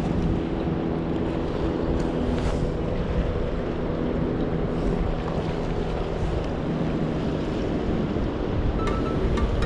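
Wind buffeting the microphone over the wash of waves, with a steady low drone underneath that fades out. Music comes in near the end.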